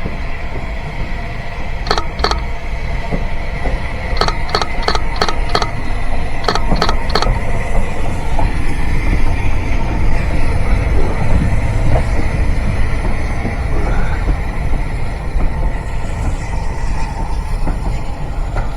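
A train rolling past over a steady low rumble, its wheels clicking over rail joints in a pair and then in quick groups of clicks.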